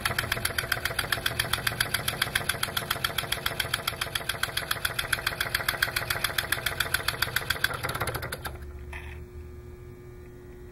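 Homemade three-cylinder, single-acting pneumatic engine running on compressed air: a fast, even stream of sharp exhaust puffs and clatter from its rotary valve and cylinders. About eight seconds in the puffing stops, leaving only a faint steady hum.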